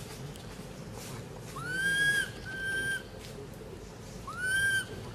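Three high, clear, whistle-like animal calls, each under a second long: the first two close together about two seconds in, the third near the end, each rising quickly in pitch and then holding.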